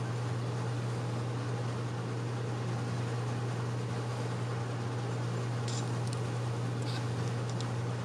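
Steady low hum with a hiss over it, at an even level, with a few faint ticks late on.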